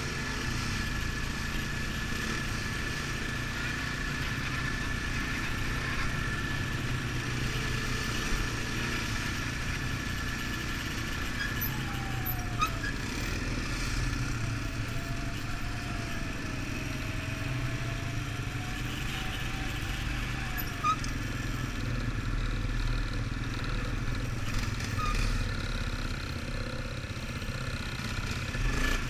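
Quad-bike (ATV) engine running steadily at low trail speed, a low drone with a thin high whine above it.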